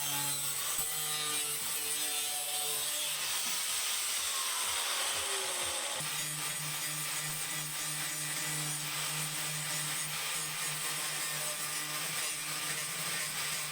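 Power tool grinding rust off car body metal, a steady abrasive hiss over a motor hum. About four seconds in, one tone sags in pitch; near six seconds the sound changes abruptly, then runs steadily again.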